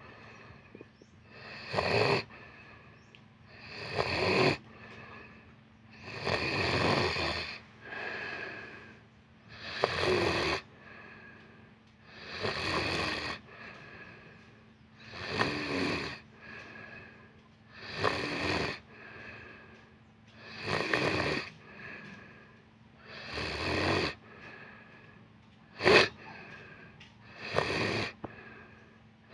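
Someone asleep snoring loudly and rhythmically, one rasping snore about every two and a half seconds.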